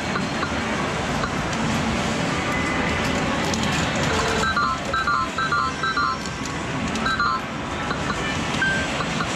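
Constant din of a medal-game arcade full of machines, with the Sigma Red Dog Poker machine giving a run of short, quick electronic beeps from about halfway through for nearly three seconds as medals are fed in and a new hand is dealt.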